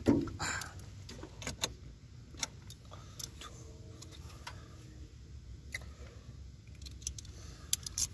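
Scattered sharp clicks and light metallic clinks, a dozen or so spread irregularly, over a low steady rumble.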